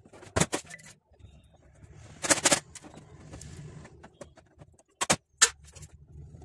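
Handling noise from working on a laser printer: a couple of sharp clicks, a short clattering rattle, then two more sharp clicks, over a faint low steady hum.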